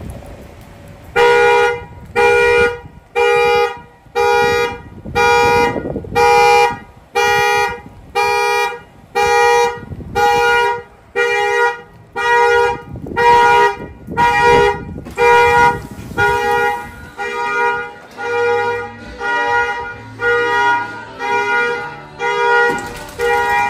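Car alarm sounding the horn in a steady repeating pattern, about one and a half honks a second, growing a little fainter toward the end.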